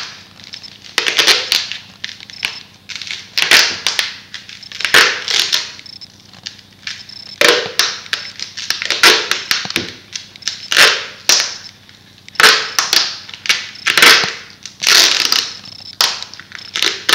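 Duct tape being pulled off the roll in short ripping pulls, irregular and about one a second, as it is wound tightly round a pipe-and-foam sword handle.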